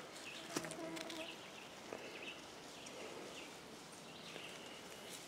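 Quiet outdoor ambience with faint, scattered bird chirps and a few soft clicks.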